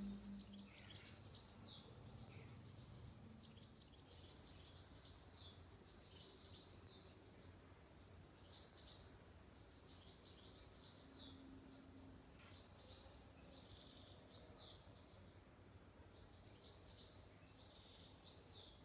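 Faint birdsong: a small bird repeating short, quick phrases of high chirping notes every couple of seconds over quiet background.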